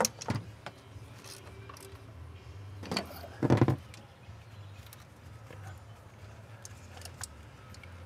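Scattered clicks and knocks of tools and parts being handled, with one short louder clatter about three and a half seconds in, over a steady low hum.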